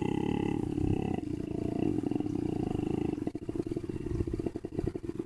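A young bass voice singing extremely low notes in a rough growl. The pitch shifts a few times, and about three seconds in the tone breaks up into vocal fry, a rapid rattle of separate pulses.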